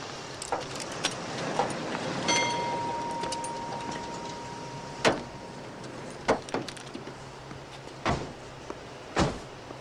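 Metal clicks and knocks from a car's license plate and its fittings being worked on, with four sharper, louder knocks in the second half. A steady beep sounds for about three seconds early on.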